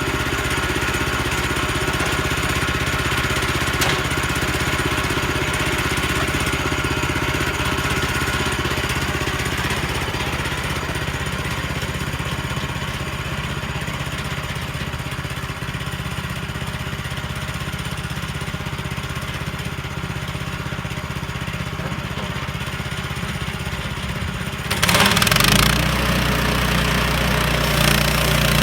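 A sawmill's small engine running steadily. About 25 seconds in the sound turns suddenly louder, with a harsh rasping hiss over the engine note.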